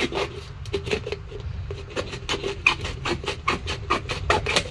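Sickle blade scraping and knocking against the hard, dry shell of a kamandalam (calabash tree) fruit as it is worked into a crack, in quick repeated strokes of about four or five a second; the shell is too hard for the blade to cut through easily.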